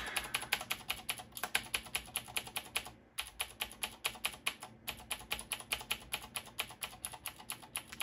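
A Ducky mechanical keyboard with clicky blue switches, its F9 key mashed over and over at several presses a second to call up the boot menu, with two brief breaks in the clicking.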